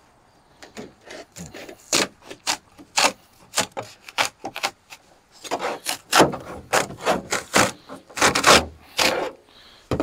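Refrigerator's sheet-metal outer skin being pried loose with a screwdriver and peeled away: a string of short scraping strokes, then longer, louder scrapes in the second half as the sheet comes up.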